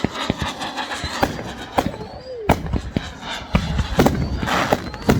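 Fireworks going off: a rapid, irregular run of sharp bangs and cracks over a continuous crackle.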